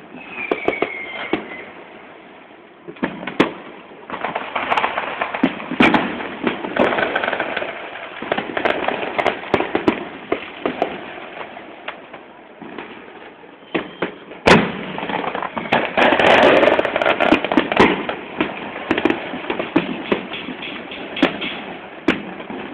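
A fireworks display going off: a continuous run of crackling bursts and pops, with one sharp, loud bang about two-thirds of the way through followed by the densest crackling.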